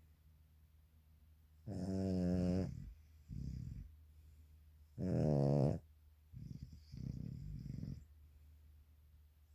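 A sleeping small dog and a man snoring. There are two loud, pitched snores about a second long, each followed by a rougher, noisier breath.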